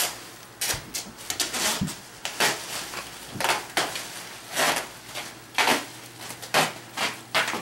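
Black plastic trash bags crinkling and rustling in irregular bursts as they are pulled and wrapped around a bulky bundle.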